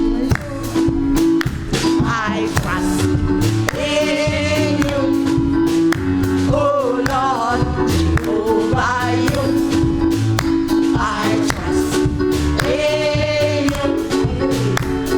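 Live gospel music: a group of singers with vibrato, joining in about two seconds in, over sustained instrumental accompaniment with a steady beat.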